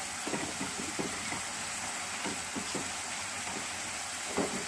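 Thick tomato and chilli chutney sizzling in a hot pan, with a silicone spatula stirring through it in short strokes.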